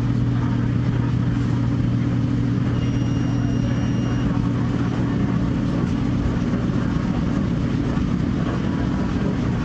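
Pizza-restaurant ambience: a steady, low mechanical hum from the restaurant's equipment. A high steady tone sounds for about a second and a half, about three seconds in.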